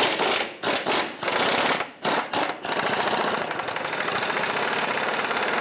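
Pneumatic impact wrench hammering on a rusted, seized subframe cradle bolt that has just been heated with a butane torch to free it: a few short bursts, then one long continuous run from about two and a half seconds in.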